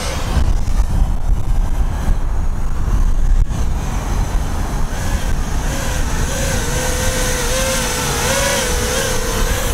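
Wind buffeting the microphone; from about five seconds in, the whine of an FPV quadcopter's motors and propellers comes up over it, wavering up and down in pitch with the throttle as the quad flies close by.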